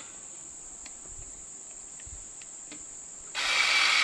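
A cordless screw gun starts about three seconds in and runs steadily, driving a small screw into a metal pool-fence post to lock off a latch bracket. Before it, a steady high-pitched insect chirring and a few faint handling clicks.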